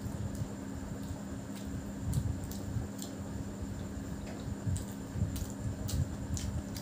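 Close-miked eating sounds from a person eating biryani by hand: moist squishing and chewing with scattered sharp little clicks, over a steady low hum.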